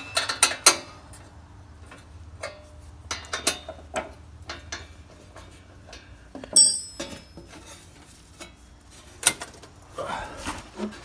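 Metal hand tools, wrenches and sockets, clinking and clattering as they are handled, with a loud ringing metallic clink about six and a half seconds in.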